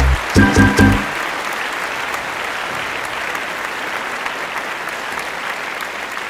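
Steady applause from a crowd. The last few low notes of a music track sound over it in the first second.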